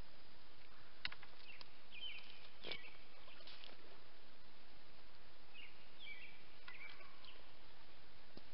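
Birds calling in short high chirps, in several groups, over a steady outdoor hiss, with two sharp clicks about one and nearly three seconds in.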